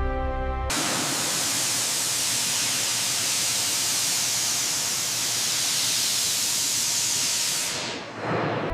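A steady, loud spraying hiss of pressurised air or steam cuts in sharply about a second in, replacing the music. It holds evenly, dips briefly near the end, then gives way to music again.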